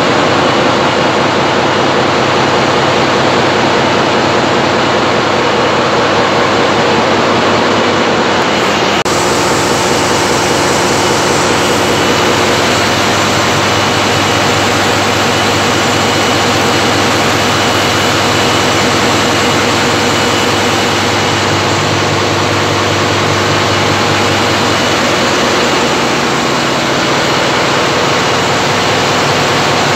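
Large stationary diesel generator engines running, a loud, steady din with a fast even pulse beneath it; it turns brighter and hissier about nine seconds in.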